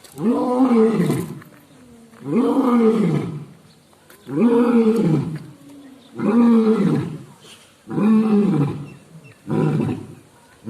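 A lion roaring in a series of deep, loud roars about every two seconds, each rising then falling in pitch, the last few shorter as the roaring bout tails off.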